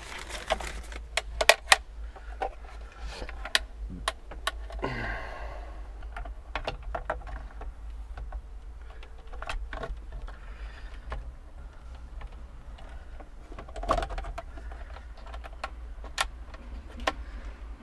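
Scattered clicks and light knocks of auto-steering kit parts being handled and fitted onto a tractor's steering column, over a steady low hum.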